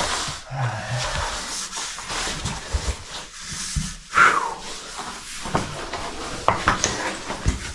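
A caver climbing up through a rock passage: panting, with scraping and rubbing against rock and scattered knocks of gear and hands, and a short falling squeak about four seconds in.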